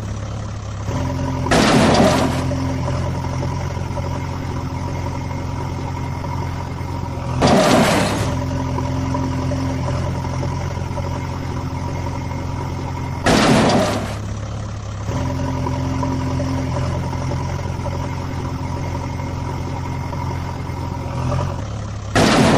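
Vehicle engine running steadily at idle, interrupted three times, and once more at the very end, by a short, loud rushing burst lasting under a second.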